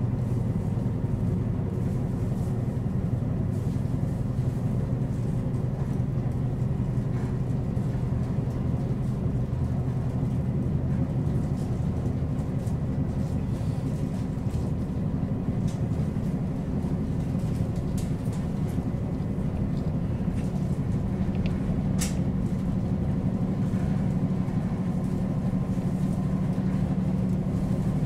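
Diesel engine of a JR Hokkaido KiHa 40 series railcar idling steadily while the railcar stands at a platform. Its low hum shifts up in pitch about halfway through, and a single sharp click comes near the end.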